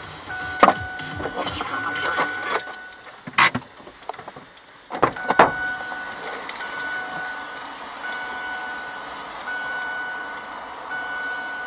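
Electronic beeping: a steady high tone sounding for about a second at a time with short gaps, repeated over and over. A few sharp clicks and knocks come in the first half.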